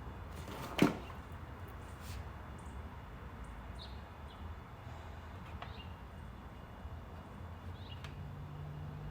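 A single sharp click about a second in, from handling the door handle parts, over a low steady hum. Faint short chirps, like a small bird, come every couple of seconds.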